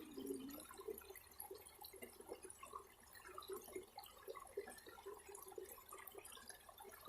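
Faint trickling and dripping water, with small irregular patters.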